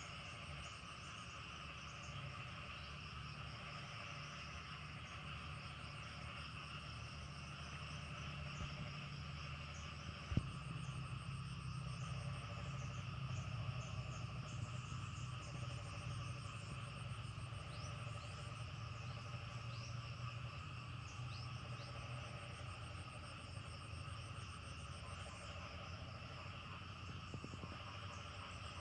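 Steady chorus of crickets and other insects, several high buzzing layers at once, with frogs calling lower down. About ten seconds in there is a single sharp click, and after it a low even rush of water flowing along a concrete irrigation channel grows louder.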